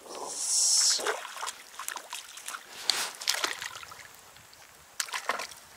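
Water splashing and trickling as a hooked crucian carp is played at the surface, opening with a loud rushing splash about half a second in, then scattered small splashes and clicks.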